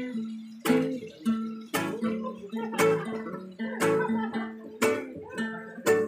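Two acoustic guitars playing together without singing: sharp strummed chords land about once a second, with picked notes ringing between them.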